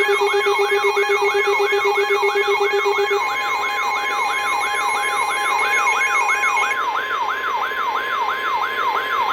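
Weather alert radio's siren-like alarm: a sweeping tone rising and falling about three times a second, over steady electronic alert tones.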